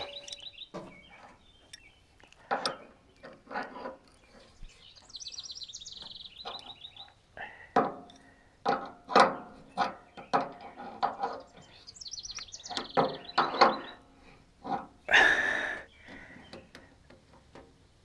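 Scattered metal clinks and knocks of hand tools working the belt-tension adjuster and mounting bolts on a sawmill's engine mount. A short rasping noise comes about three-quarters of the way through. A songbird sings a quick descending trill twice in the background.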